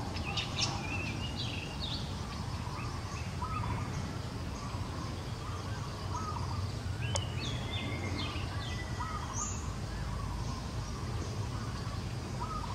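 Birds chirping and calling over a steady low rumble of outdoor background noise. Short high chirps come in clusters, with lower hooked notes repeating about once a second. A single sharp click sounds about seven seconds in.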